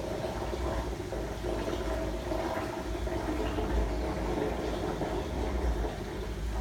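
Aquarium air stones bubbling steadily, a continuous watery hiss with a low hum underneath.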